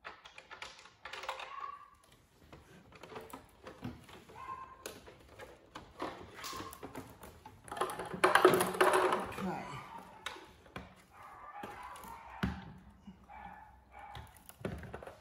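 Handling noise from a Newgy Robo-Pong table tennis robot's plastic unit being taken out of its net tray: scattered knocks, taps and rubbing of hard plastic, busiest about eight to nine and a half seconds in, with a sharp knock about twelve and a half seconds in.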